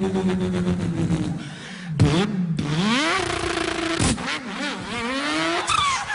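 A man imitating a car engine with his voice: revving notes that glide up and down, broken by two sharp pops, about two and about four seconds in.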